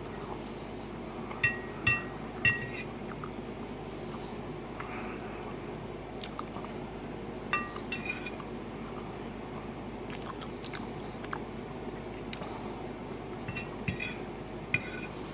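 Eating utensil clinking against a dish with a short ringing tone: three clinks in the first few seconds, two more around the middle and two near the end. Faint chewing comes in between.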